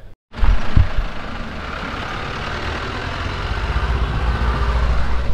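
Road traffic on a town street: vehicle engines running and passing, with a steady low rumble that grows a little louder toward the end. It starts abruptly after a split second of silence.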